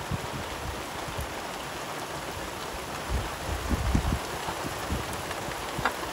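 Steady rain falling on a sailboat's deck, a continuous even hiss, with a few low thumps about three to four seconds in.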